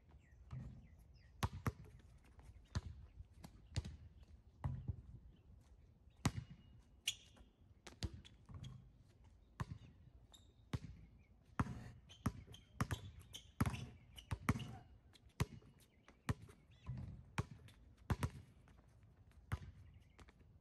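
Basketball bouncing on a concrete court: short, sharp bounces at an uneven pace, about one or two a second.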